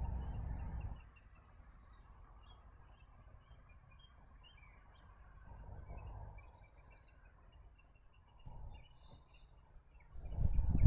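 Small songbirds chirping and singing in short, scattered calls, with bursts of low rumble in the first second and again, louder, near the end.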